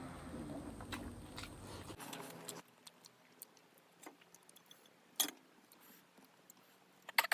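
Eating sounds: soft chewing noise for the first couple of seconds, then quiet with a few sharp mouth or utensil clicks, the loudest about five seconds in and a quick pair near the end.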